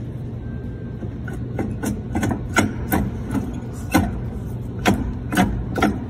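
Car wheel clunking: about ten sharp, irregularly spaced knocks starting about a second and a half in. The wheel is fitted with the wrong lug nuts, installed backwards.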